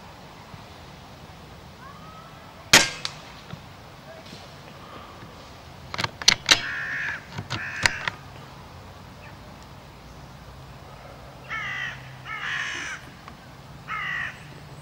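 Crows cawing in harsh bursts, a few calls in the middle and three more bursts near the end. Shortly after the start comes a single sharp crack, an air rifle shot, and a few quick clicks follow a few seconds later.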